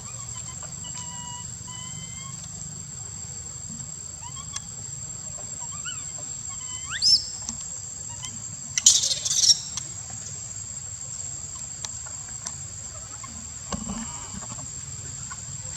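Baby monkey screaming: one shrill cry rising steeply in pitch about seven seconds in, then a short burst of high shrill screams about two seconds later. A steady high insect drone runs underneath.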